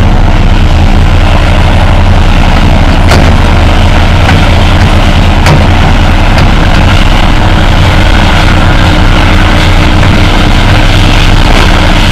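Diesel engine of a John Deere crawler dozer running loud and steady as the machine works the soil, with a few sharp clanks along the way.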